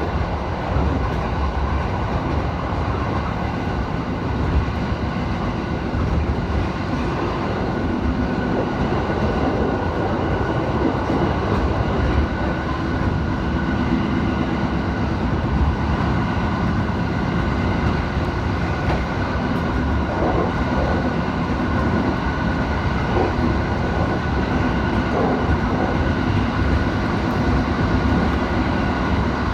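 Train running at low speed under a strong-wind slow order, heard from inside the carriage: a steady rumble of wheels on rail with a faint, steady high tone over it.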